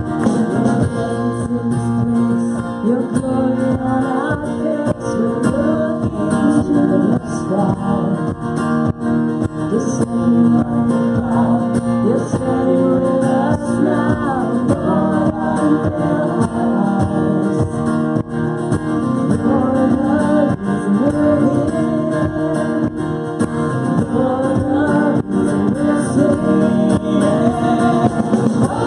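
Live worship band music: a woman singing lead over strummed acoustic guitar, electric guitar and a drum kit.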